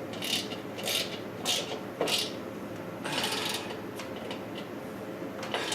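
Socket ratchet wrench working small bolts tight, its pawl rasping in short strokes about every half second, then a longer ratcheting run about three seconds in.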